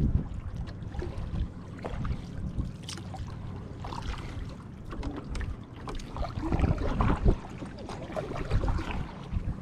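Canoe paddle strokes in lake water, the blade dipping and splashing at an uneven pace, with occasional light knocks from the paddle and gear in the canoe. Wind rumbles on the microphone underneath.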